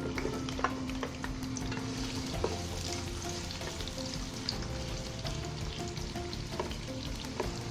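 Onions sizzling as they fry in hot vegetable oil, with a steady crackling hiss and occasional clicks of a utensil stirring them.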